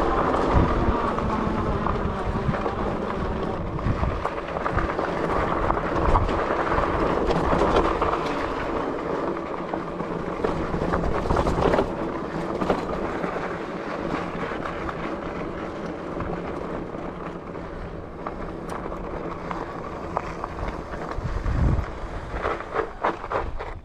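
Electric bike's 750 W motor whining steadily under load on a steep dirt climb, over the low rumble of fat tyres on dirt and wind on the microphone. The whine grows fainter in the second half, and gusts of wind buffet the microphone near the end.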